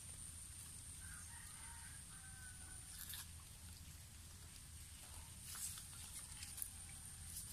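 Quiet outdoor background with a steady high-pitched hum, a few faint short calls in the first three seconds, and a few brief rustling clicks from hands handling the caught fish in dry leaves and twigs, the loudest about five and a half seconds in.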